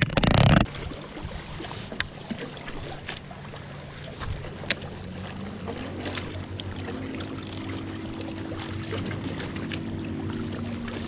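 Bow-mounted electric trolling motor humming steadily, growing louder about six seconds in, with scattered small clicks over a light wash of water noise. A brief loud rustle comes right at the start.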